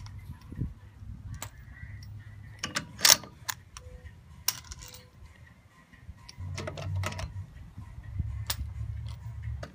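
Lug-nut wrench clicking and lug nuts clinking as a car wheel's nuts are loosened and taken off, in irregular sharp metallic clicks. A low hum comes and goes under them.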